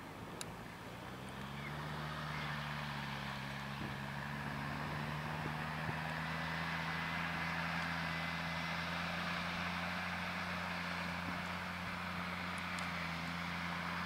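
Fendt 820 tractor's six-cylinder diesel engine working under load as it pulls a six-furrow plough uphill. It rises in pitch and loudness over the first couple of seconds as it draws closer, then holds a steady drone.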